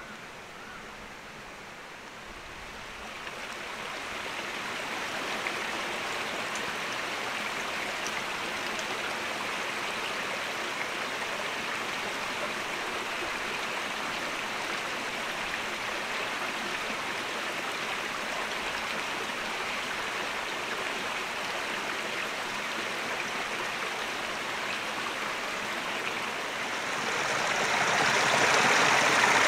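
Steady rushing of a flowing stream. It fades up about three seconds in and grows louder near the end.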